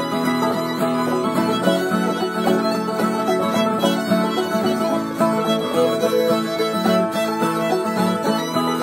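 Fiddle playing the melody of an old-time fiddle tune, backed by several strummed guitars and other plucked string instruments, in a steady, continuous string-band groove.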